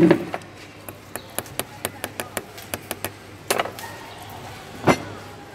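A jeweler's steel hand tool clicking lightly against a gold and ruby piece during stone setting: a thump at the start, then a quick run of sharp little clicks, about five a second, then two louder knocks about a second and a half apart.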